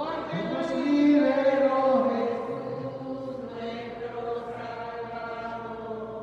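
A church hymn being sung in long, drawn-out notes, swelling about a second in and then dying away near the end.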